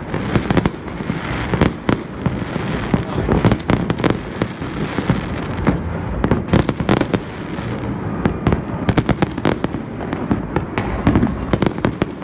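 Many fireworks going off at once: a continuous barrage of overlapping bangs and crackles, with tight clusters of sharp cracks in the second half.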